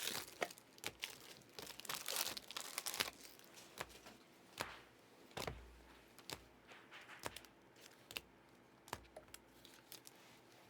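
Crinkling and tearing of trading-card pack wrappers and packaging, dense for the first few seconds, then scattered clicks and taps as cards and packaging are handled.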